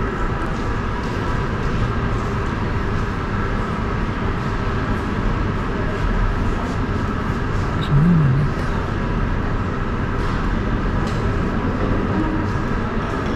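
Steady rumbling background noise with faint steady hum tones, and one brief louder low sound about eight seconds in.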